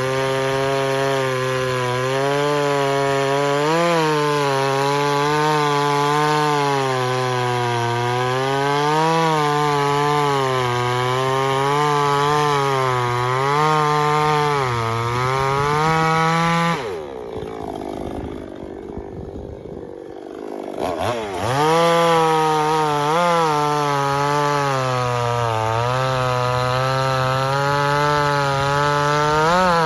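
Two-stroke gas chainsaw cutting wood at full throttle, its engine pitch wavering up and down under load. About 17 seconds in the engine drops off sharply and winds down for a few seconds, then revs back up and carries on cutting.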